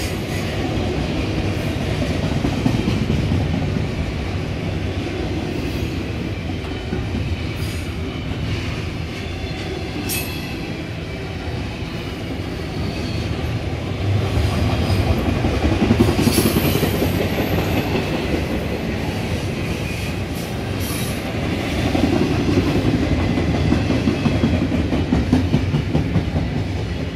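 BNSF double-stack intermodal freight train's well cars rolling past: a steady rumble and clatter of steel wheels on the rails, with a couple of brief high squeaks.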